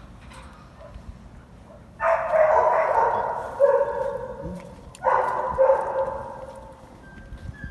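Dogs barking in two loud bouts, the first about two seconds in and the second about five seconds in, each lasting a second or so before fading.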